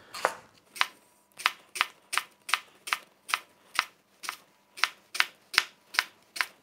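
Kitchen knife slicing a leek into rings on a cutting board: a steady run of crisp cuts, about two or three a second, each ending in a tap of the blade on the board.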